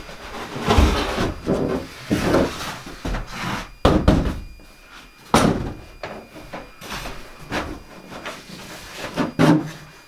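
Interior wall panels being handled and knocked into place: irregular bumps and scrapes, with sharp knocks about four, five and a half and nine and a half seconds in.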